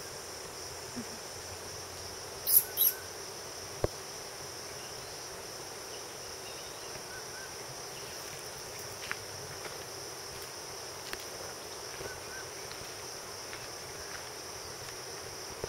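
A steady, high-pitched insect drone fills the forest. About two and a half seconds in, two short, sharp high-pitched sounds stand out as the loudest moments, followed by a single click a second later.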